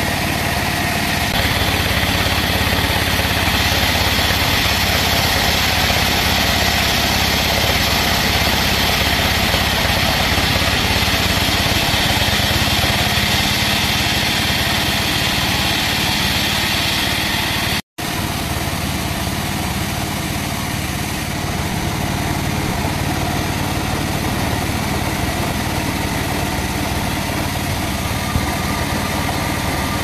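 Band sawmill running, its blade sawing through a teak log with a steady mechanical drone and hiss. The sound cuts out for an instant about two-thirds of the way through, then the same steady running resumes, a little less hissy.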